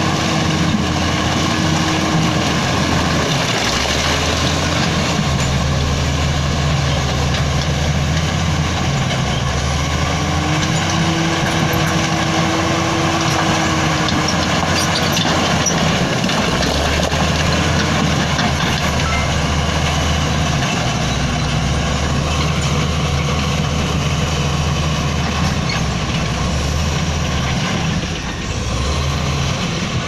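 Komatsu D85E-SS crawler bulldozer's diesel engine running under load as it works broken rock, its pitch stepping up and down every few seconds. A whine rises and falls for a few seconds about ten seconds in.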